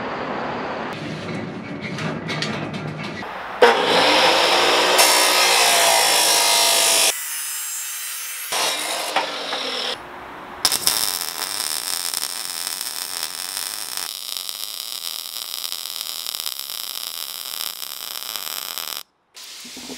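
A run of metal-fabrication sounds with sudden cuts between them: a power saw running and cutting steel tubing, loudest for about three seconds early on, then a Miller MIG welder's arc crackling and hissing steadily through the second half as the steel frame is tacked and welded.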